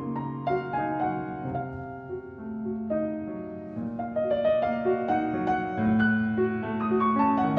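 Background music: a gentle piano melody with sustained notes.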